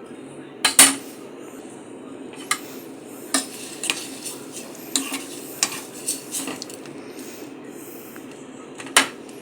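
Spoon stirring beans in a cooking pot, knocking and scraping against the pot in scattered clinks, the loudest just under a second in and near the end.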